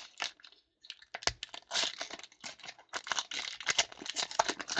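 Foil trading-card pack wrapper being torn open and crinkled by hand: after a brief lull, a dense run of sharp crackles and rustles from about a second in.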